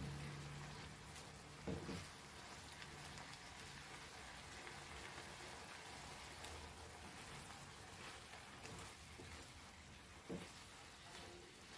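A silicone spatula stirring prawn chili fry in a non-stick frying pan: soft, faint scraping and squelching of the food over a faint even hiss, with two brief knocks of the spatula on the pan, one about two seconds in and one near the end.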